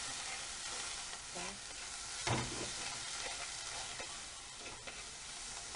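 Onions and parsley frying in butter in a frying pan, sizzling steadily while a spatula stirs them around the pan. One louder knock a little over two seconds in.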